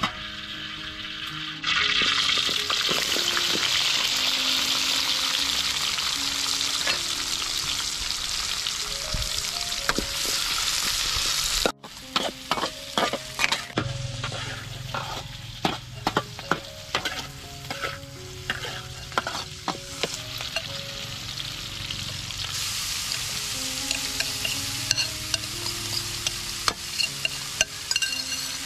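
Sliced shallots frying in hot oil in a steel wok, with a loud steady sizzle from about two seconds in. After a sudden break about halfway through, the sizzle is quieter and a metal spatula stirs, scraping and clacking against the wok again and again. Soft background music plays underneath.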